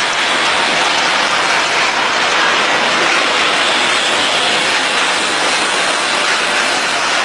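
Puffed-snack production line machinery running: a steady, loud mechanical din with a hissing edge and no clear rhythm.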